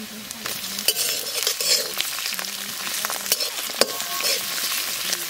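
Pond oysters and sliced onions sizzling in hot oil in a metal wok. From about a second in, a spatula stirs them, scraping and knocking against the pan several times.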